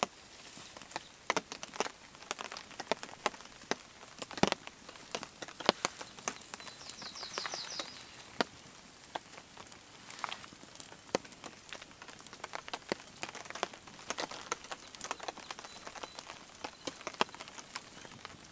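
Small campfire crackling as freshly laid wood catches, with sharp, irregular pops.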